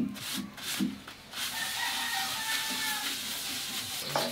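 A rooster crowing: one long, drawn-out call in the middle, with a few short low thumps just before it.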